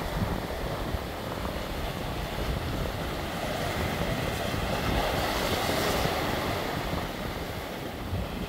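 Sea surf breaking and washing over a rocky shore, with wind buffeting the microphone. About halfway through, a wave breaks and surges louder, then eases off.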